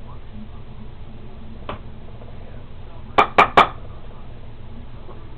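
Three quick, sharp metallic clinks about a fifth of a second apart, after a single fainter tap, from small tools knocking against hard parts during soldering work on the amplifier, over a steady low hum.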